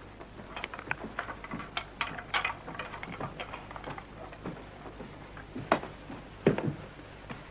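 Footsteps and small knocks on a wooden floor and stairs, uneven, with two louder thumps about six and six and a half seconds in.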